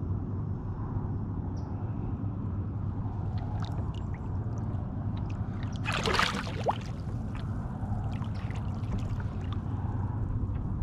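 Water trickling and sloshing against the side of a kayak as a redfish is held in the water before release, with one short splash about six seconds in; a low steady hum runs underneath.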